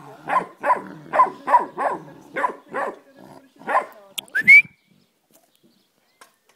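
Dog play barking: quick repeated barks, two to three a second, that stop about four seconds in, followed by one short rising yelp.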